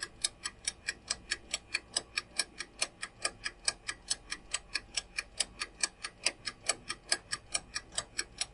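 Quiz countdown timer sound effect: clock-style ticking at an even pace of about four to five ticks a second, marking the seconds left to answer.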